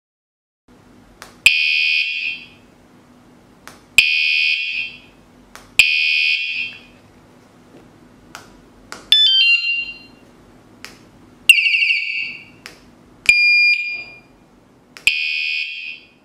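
Electronic bike anti-theft alarm sounding seven short, loud bursts of about a second each, every one set off with a click. The first three are the same shrill beep; the later ones change pattern, with falling chirps, a warble and a two-tone beep, as different alarm tones go off.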